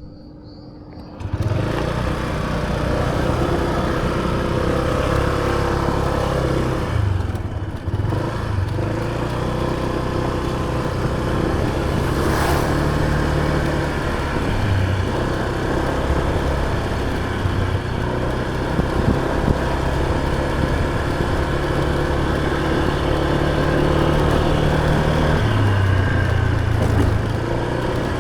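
Motor scooter's engine running, setting in about a second in and then holding steady, its pitch dipping and rising a few times with the throttle.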